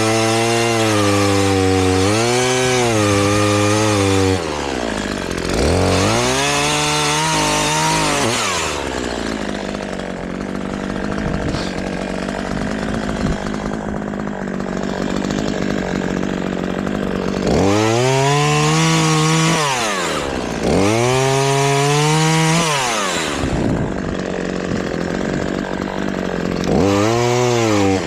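Gasoline chainsaw cutting wood. The engine speed dips and climbs back several times, with a longer stretch of steady running under load in the cut in the middle.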